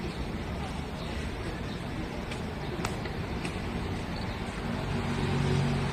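Steady low rumble of road traffic, with a vehicle engine's hum growing louder near the end. A few faint clicks come a couple of seconds in.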